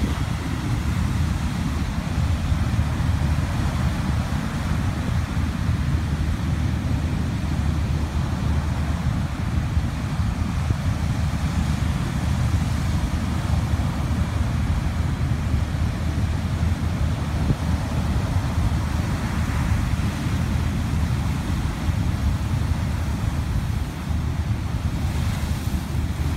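Heavy storm surf breaking and churning steadily, mixed with a deep rumble of wind on the microphone.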